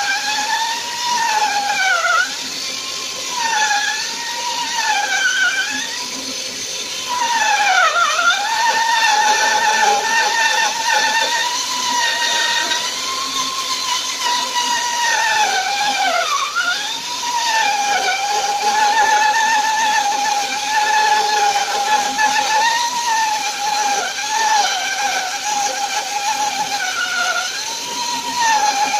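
Homemade mini bandsaw driven by a washing-machine motor, running and ripping a strip of wood. A steady whine over a hiss of sawing, the whine dipping briefly in pitch several times.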